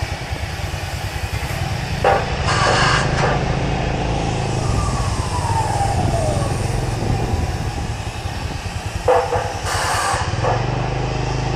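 Street traffic with engines running steadily, a few passing vehicles whose pitch falls as they go by, and two short harsh bursts of noise, about two seconds in and again about nine seconds in.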